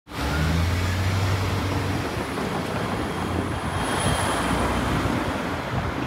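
Road traffic passing on a street, with a low, steady engine hum from a nearby car during the first two seconds.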